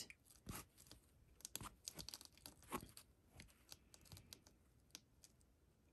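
Faint rustling and light scratchy ticks of sewing thread being drawn through quilted fabric and handled, a few small sounds scattered through otherwise quiet room tone.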